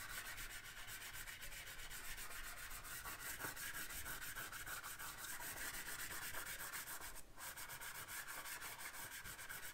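Soft chalk pastel scraping across paper in quick, repeated back-and-forth strokes as a broad area is shaded in, faint and scratchy, with a brief break about seven seconds in.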